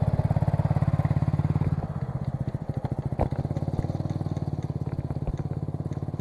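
A small engine running steadily close by, with a fast, even pulse. It stops abruptly near the end.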